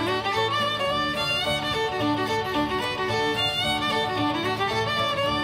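Background music led by fiddle, a lively tune of quick bowed notes over a steady bass line.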